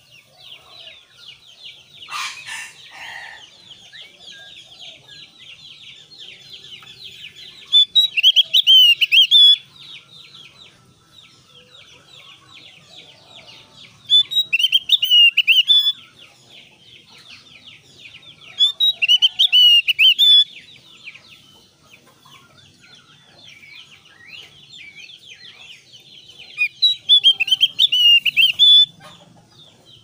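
Javan grey-throated white-eye singing hard: four loud, bright bursts of rapid song, each lasting a second and a half to two seconds, over steady fast high twittering. A short knock comes about two seconds in.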